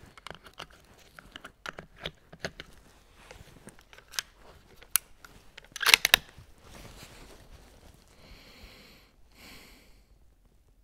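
Small metallic clicks of two .308 Winchester cartridges being pressed into a detachable rifle magazine, then a louder cluster of clicks about six seconds in as the Bergara B14 Sporter's magazine is seated and its bolt worked. Two short rustling hisses follow near the end.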